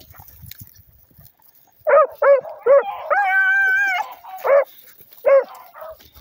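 Beagle hound baying on a rabbit's scent: three quick chop barks, then a drawn-out bawl of about a second, then two more chops. The first two seconds are quieter, with only light rustling.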